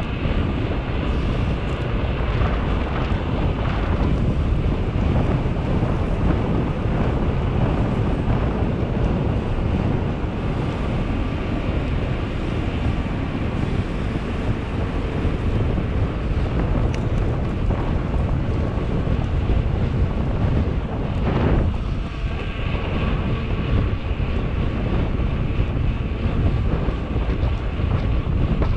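Wind buffeting the microphone of a GoPro action camera on a moving bicycle: a steady deep rushing noise throughout.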